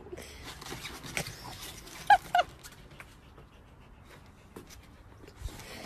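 Two short, high-pitched yelps from a dog, about a third of a second apart, amid light knocks and rustling.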